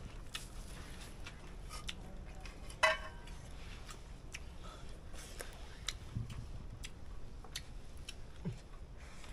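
Hands eating from steel plates: scattered light clicks and taps of fingers and rice against the metal, with one louder ringing clink about three seconds in.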